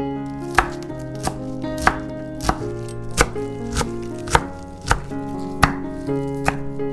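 Chef's knife chopping fresh green herbs on a wooden cutting board: about ten sharp, evenly spaced chops, roughly one every two-thirds of a second. Background music plays underneath.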